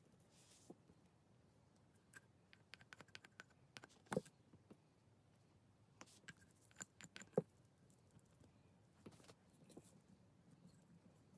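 Faint scattered clicks and taps of small metal parts (a steel plunger with its spring and little brass fittings) being handled and set down on the bench, with the loudest knocks about four seconds in and again about seven seconds in.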